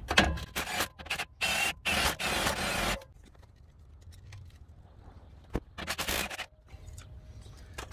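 Milwaukee Fuel cordless impact wrench run in several short bursts and then a longer one on a sway bar end link nut. Then quieter handling clicks while the spinning stud is held with pliers, and one more brief burst of the tool about six seconds in.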